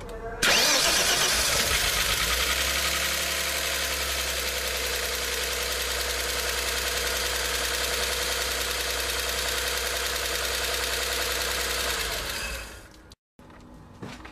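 Car engine running steadily and loudly. It cuts in abruptly about half a second in and fades out near the end.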